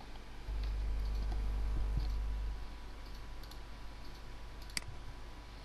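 Computer mouse clicking, one sharp click about five seconds in plus a few faint ticks, over a low hum that swells for about two seconds near the start.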